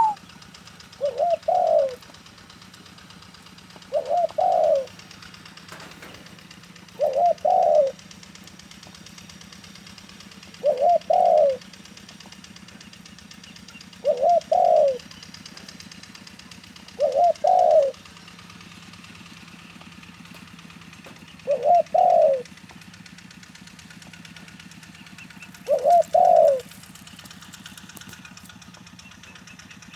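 A zebra dove cooing: short, repeated coo phrases, about eight of them, one every three to four seconds. It is a middle-pitched voice with a single 'kuk' note and a 'pak thorani' ending.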